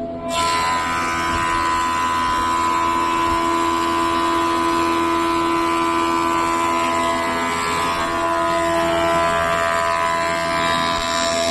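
Industrial thickness planer cutting a board as it feeds through: a loud, dense, high-pitched planing noise starts just after the beginning and holds steady for about eleven seconds over the machine's constant motor whine.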